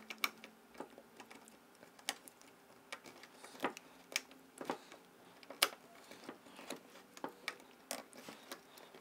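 Irregular small clicks and taps of hands handling the plastic 3D-printed controller board mount and its cooling fans while trying to remove the fans.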